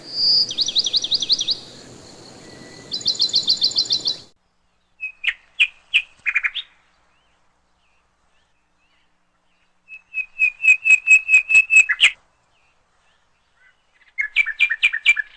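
Songbird singing short phrases of rapid repeated high notes, separated by pauses of a few seconds, over a faint hiss that cuts off about four seconds in.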